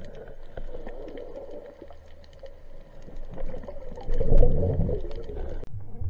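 Underwater sound picked up through a camera housing: a muffled, wavering hum under a steady crackle of small clicks, with a louder low rumble about four seconds in.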